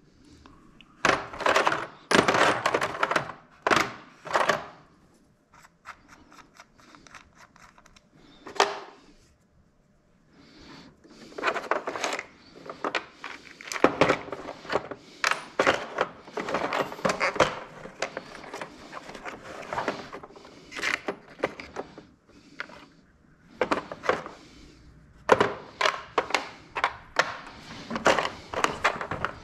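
Irregular clusters of sharp clicks and knocks of hard objects, with short pauses between the clusters.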